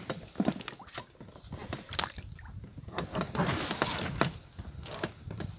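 Irregular knocks and rustles of gear being handled in an inflatable rowing boat as fishing line is pulled in by hand.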